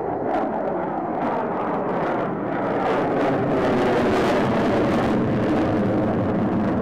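F-16 Fighting Falcon's jet engine in afterburner, a loud rushing noise with some crackle that grows louder about three seconds in.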